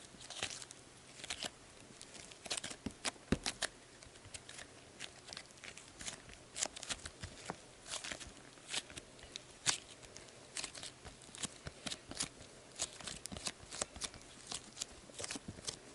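Sbabam Melmito soft slime with foam beads being kneaded and squeezed by hand, giving faint, irregular little clicks and crackles.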